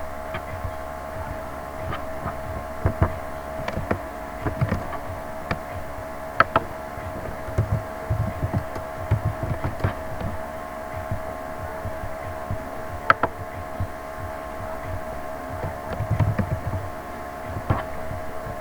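Scattered computer mouse clicks and keyboard taps over a steady hum made of several fixed tones.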